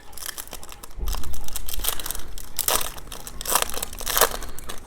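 A Topps trading-card pack wrapper crinkling and tearing as it is opened by hand, in a run of crackly rustles with several louder crackles in the second half.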